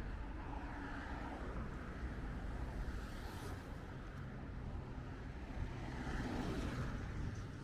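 Road traffic: a steady rumble of vehicle engines and tyres, swelling as vehicles pass about halfway through and again near the end.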